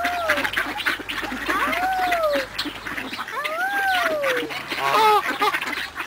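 A flock of mallards crowding close, quacking over one another in a continuous chatter, with a loud burst of quacks about five seconds in. Several longer calls that rise and fall in pitch are mixed in.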